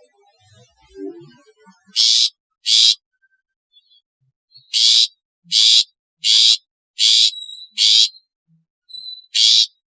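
Long-tailed shrike (cendet) giving harsh, raspy calls, eight in all at uneven spacing, each short and loud.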